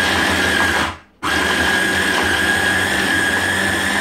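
Stick blender motor on its chopper bowl attachment, mincing chunks of raw chicken breast: a steady high whine that cuts out briefly about a second in and then starts again.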